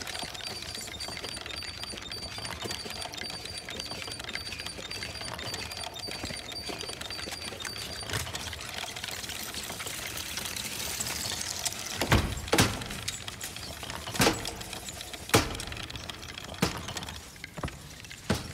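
A small toy tricycle with a doll rider rolls along with a faint, rapid, even mechanical ticking. Later there are six sharp knocks, a second or two apart.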